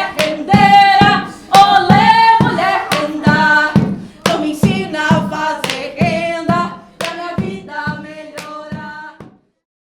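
Voices singing a song, accompanied by sharp hand claps. The song stops abruptly a little over nine seconds in.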